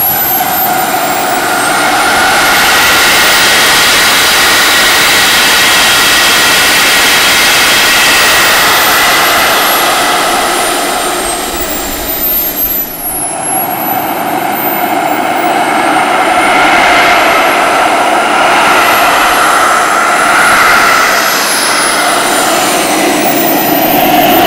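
Miniature turbine engine of a large RC model jet running loud, a rushing noise under a high whine. The whine climbs over the first few seconds, sinks around halfway, then rises again and wavers up and down.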